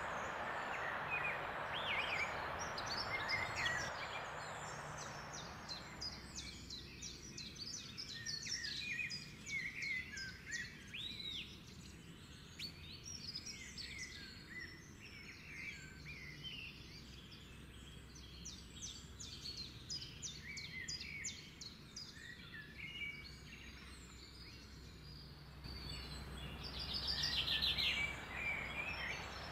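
Wild birds singing and chirping, many short high calls overlapping, with a louder fast trill near the end. For the first six seconds a steady hiss lies under the song, then it stops abruptly.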